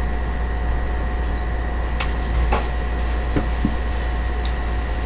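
Room tone: a steady low electrical or fan hum with two faint thin whines, and a few faint clicks and taps in the middle.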